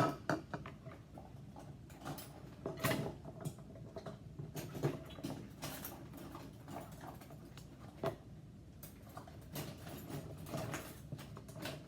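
Irregular light clicks and clatters of kitchen utensils and measuring cups being rummaged through, as a drawer is searched for a half-cup measure.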